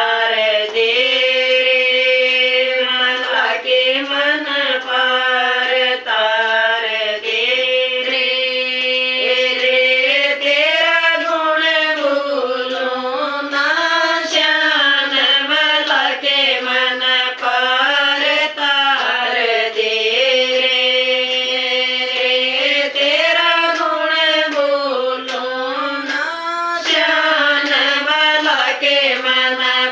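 Group of women singing a Hindi devotional bhajan to Sita Mata in unison, in long held melodic lines, with hand-clapping keeping time.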